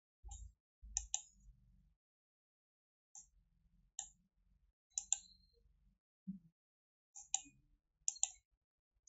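Computer mouse clicking: about seven short, sharp clicks at irregular intervals, some in quick pairs, with faint low bumps of handling between them.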